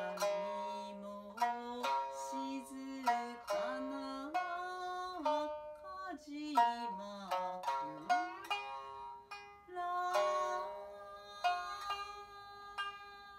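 A woman singing an Edo hauta, sliding between notes, to her own shamisen played with a plectrum in niagari tuning: sharp plucked notes ringing out under and between the sung phrases.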